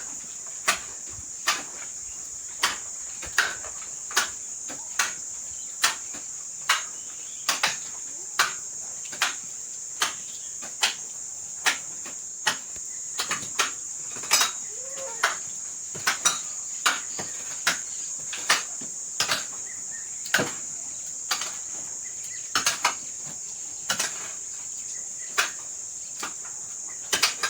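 Steady high-pitched insect drone, like crickets, with sharp clicks or knocks about once a second that are louder than the drone.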